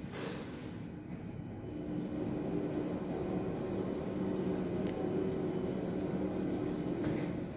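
Schindler elevator car travelling downward: a steady low hum with a couple of droning tones that grows louder a second or two in and then holds.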